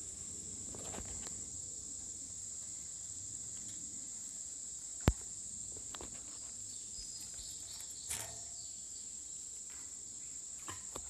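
Steady high-pitched insect chorus, with a single sharp knock about five seconds in and a smaller clatter about three seconds later.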